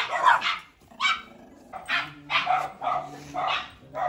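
A dog barking repeatedly in a quick run of short barks, about three a second.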